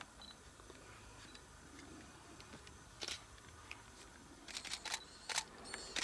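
Faint camera shutter clicks: a single click about halfway through, then a quick run of several near the end, over a quiet, even background.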